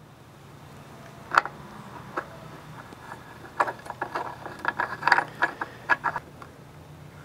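Light, irregular clicks and rattles of a plug being worked loose and unscrewed by hand from the wiring port on the back of a variable speed pool pump motor: one sharp click early, then a busier run of clicks in the middle.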